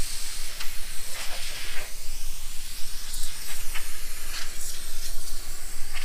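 Aerosol can of garage door lubricant spraying through a thin straw nozzle into the metal door tracks: a continuous hiss.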